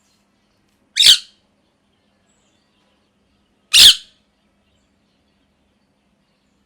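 Pet ringneck parrot giving two short, loud calls, about three seconds apart.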